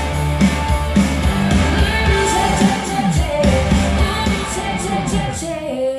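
Rock song with singing played back through a pair of Bose S1 Pro speakers with two Bose B1 subwoofers, with heavy, tight bass. Near the end the bass and drums drop out and the music thins as the song winds down.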